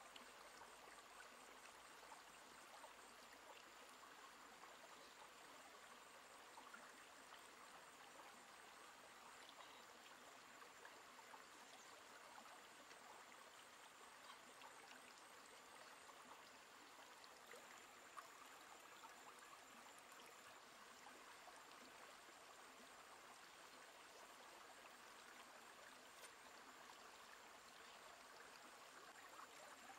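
Faint, steady rush of a shallow stream running over rocks, with a thin high-pitched tone held throughout and one small click about 18 seconds in.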